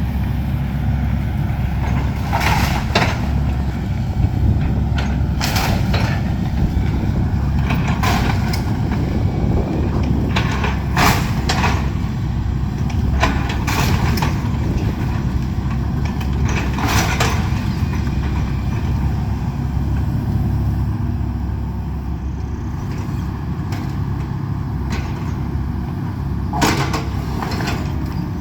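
Excavator's diesel engine running steadily while it demolishes a house, with sharp, irregular cracks and crunches of breaking building material every few seconds.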